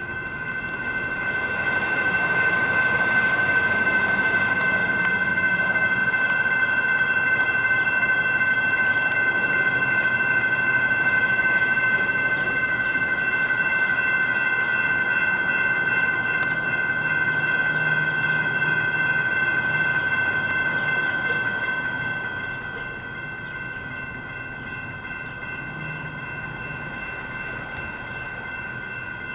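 ASC electronic grade-crossing bells ringing steadily, a continuous electronic tone. Under them a CAF light rail train runs through the crossing, swelling in about a second in and fading out about twenty-two seconds in, while the bells keep ringing.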